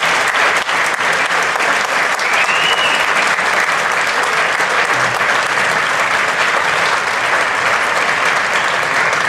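Audience applauding steadily at the end of the song, with one short high tone that rises and falls about two and a half seconds in.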